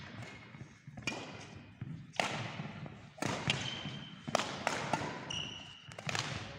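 Badminton rally: sharp racket strikes on the shuttlecock about once a second, each with a short echo from the hall. Two brief shoe squeaks on the court floor come in the second half.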